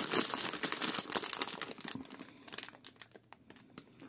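Clear plastic parts bag crinkling as it is handled, dense for about two seconds, then thinning out to scattered sharp crackles.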